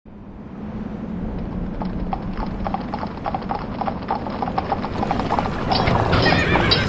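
Horses galloping: a steady rhythm of hoof beats over a low rumble, fading in and growing louder.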